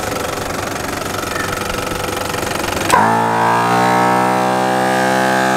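A four-wheel drive's engine idling. About three seconds in, a MAXTRAX 12-volt portable air compressor starts with a click, rises in pitch and settles into a steady, louder buzzing hum as it pumps up a tyre.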